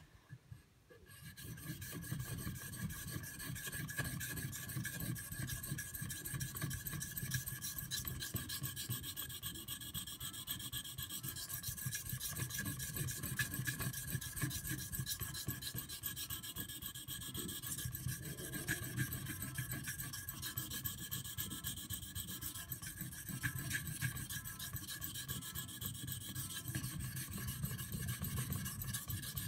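CPM 3V steel blade of a Bark River Northstar EDC knife being stroked steadily across a Shapton Pro 1000-grit whetstone, a continuous scraping rub that starts about a second in. The steel is highly wear resistant and slow to abrade on this grit.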